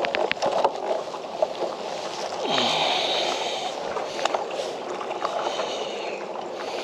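Spinning reel whirring in two short spells while a hooked bream is played from a kayak, over a steady wash of water against the hull. A few sharp clicks come near the start.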